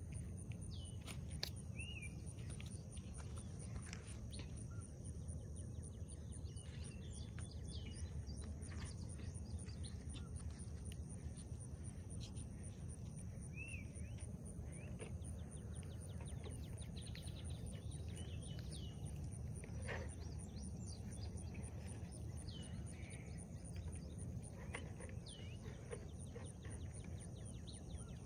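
Outdoor evening ambience at a pond: birds give short, scattered chirping calls over a steady high insect trill, with a faint steady low rumble underneath.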